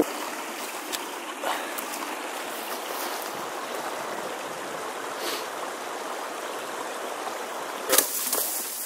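Steady rush of flowing stream water. Near the end comes a short burst of crunching and rustling, as of someone pushing through dry brush and snow.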